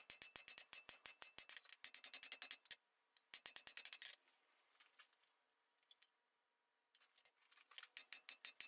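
Hand hammer striking red-hot round mild steel bar on an anvil in quick runs of about five blows a second, each blow ringing. The smith is forging the curved arm of a pair of dividers and flattening it. The hammering pauses for about three seconds in the middle, then starts again near the end.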